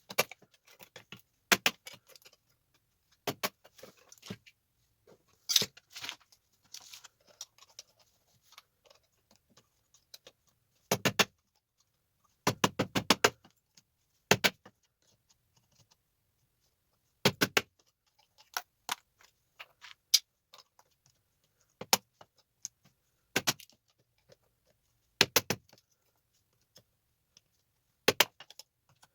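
Sharp metallic clicks and clinks at irregular intervals, some in quick clusters, as small tactile switches are worked off electronic circuit boards with a hand tool.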